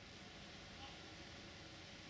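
Near silence: a faint steady hiss with a low rumble.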